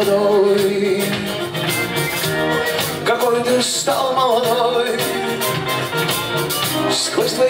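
Live rock band playing an instrumental passage: strummed acoustic guitar and keyboards under a gliding violin melody.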